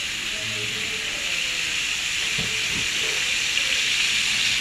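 Hilsa fish pieces sizzling in oil on a flat griddle: a steady frying hiss.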